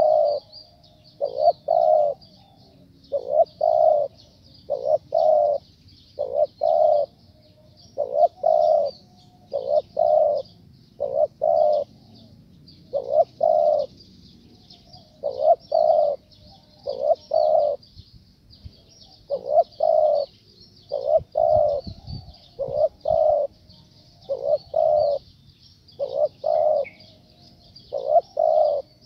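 Spotted dove cooing: a rhythmic run of low phrases of two or three notes, repeated roughly once a second with a few short pauses. Over it runs a steady high-pitched chirring.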